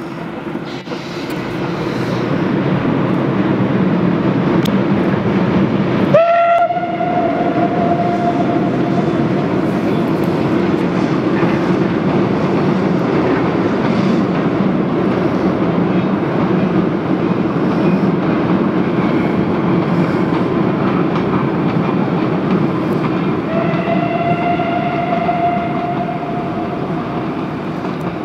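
Steam locomotive 498.022 "Albatros", a ČSD class 498.0, running with its express train: a steady loud rumble that swells over the first few seconds. Its steam whistle sounds twice, a short blast with a sharp rising start about six seconds in and a longer blast of about two and a half seconds near the end.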